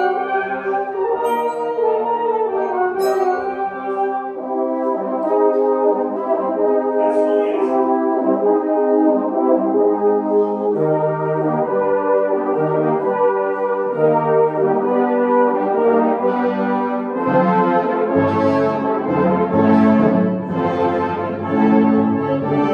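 A full brass band of cornets, horns, euphoniums and tubas playing held chords together. The deeper bass notes grow fuller about two-thirds of the way through.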